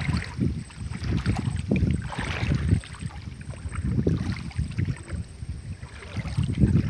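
Wind buffeting the microphone in uneven gusts, a low rumbling noise that rises and falls.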